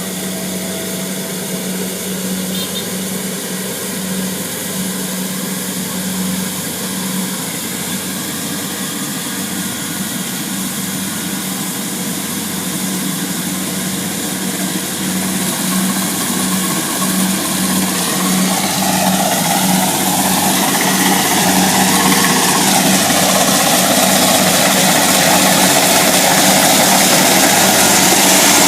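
Kubota DC70 Plus combine harvester's diesel engine running steadily, with a constant hum. About two-thirds of the way through it grows louder and a whine joins it, sliding down in pitch.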